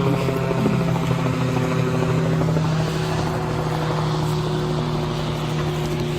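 A steady engine drone, holding one low pitch with overtones throughout.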